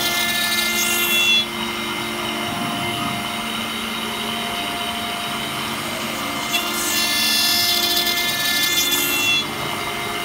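CNC router spindle running with a steady whine while a small end mill mills a brass plate. The cutting adds a loud, high-pitched hiss for about the first second and a half, and again from about six and a half to nine and a half seconds in, each stretch stopping abruptly.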